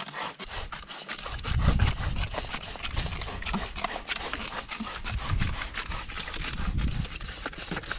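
Hand trigger spray bottle squirting over and over, each pump a short hiss of liquid onto a car's tyre and wheel well.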